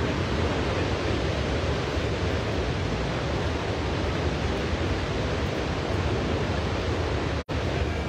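Steady rushing noise with a heavy low rumble, cutting out for an instant near the end.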